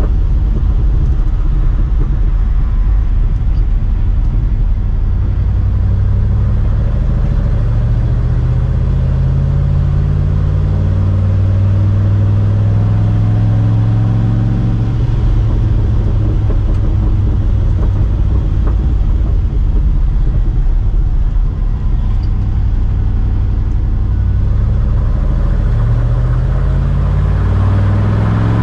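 1973 Ford F350 pickup's engine and exhaust heard from inside the cab while driving, over steady road and tyre noise. The engine note climbs slowly as the truck gathers speed, levels off, dips briefly past the middle, then rises more steeply near the end.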